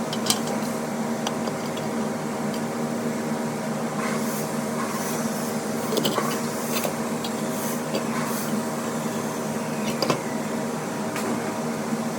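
Small electric motor running with a steady hum, with a few sharp clicks or knocks, one near the start and two more later on.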